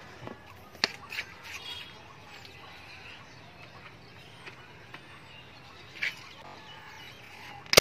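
A few light clicks and faint bird chirps. Then, at the very end, one loud sharp bang with a short ringing tail: a homemade bottle-and-pipe gun firing, the hand-sanitizer vapour in it lit by a gas-lighter spark.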